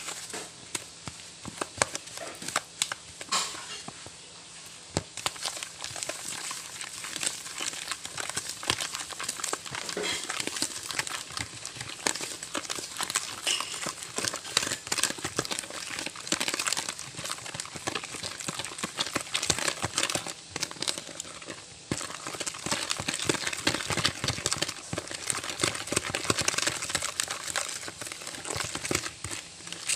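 Wooden spoon stirring and scraping a butter, sugar and egg mixture around a plastic bowl: a continuous dense run of quick scrapes and small knocks as the mixture is creamed.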